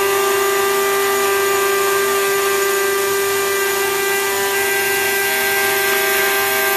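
Cutting head of a CNC digital flatbed cutting machine running steadily, a loud even whine with a strong single pitch and overtones.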